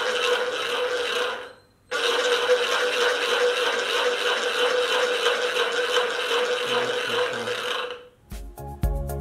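Homemade bottle-cap scrape noisemaker: the cut-off bottom of a plastic bottle is spun on a wooden skewer while a bolt held in two bottle caps scrapes against the plastic, giving a loud, steady rasping buzz. It sounds for about a second and a half, stops briefly, then runs again for about six seconds. Music with a heavy beat comes in near the end.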